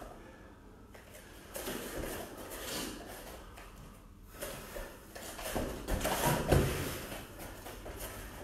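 Bare feet scuffing and stepping on foam grappling mats as two grapplers circle and one drops low to shoot for a takedown, with a heavy thud against the mat about three quarters of the way through.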